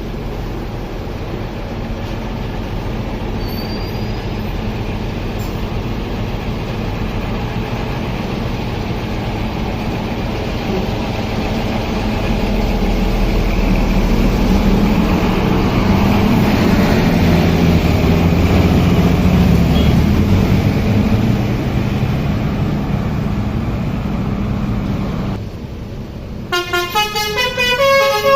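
Bus engine running with a low rumble that grows louder through the middle. About 26 seconds in, a Basuri "telolet" multi-tone bus horn starts playing a quick stepped melody.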